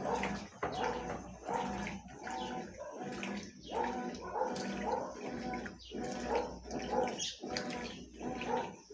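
Consul CWS 12 washing machine agitating a load of coloured clothes: a motor hum and churning water in short strokes that break off and restart about once or twice a second.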